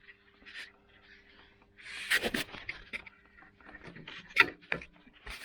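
Clicks, knocks and scrapes of small parts and tools being handled, the sharpest knocks about two seconds in and again after four seconds, over a faint steady hum.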